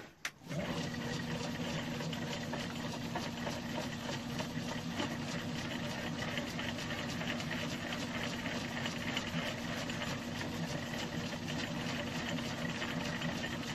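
Metal lathe switched on with a click and running steadily from about half a second in: a constant motor hum, while a chamfer mill cuts a small chamfer in the steel workpiece with a fine, even chatter.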